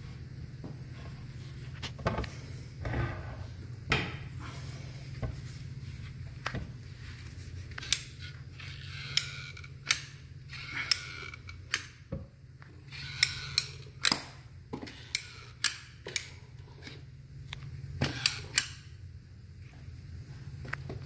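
Caulking gun being pumped to lay beads of construction adhesive on a stair tread: a sharp click about once a second, with a steady low hum underneath. A few knocks come in the first few seconds.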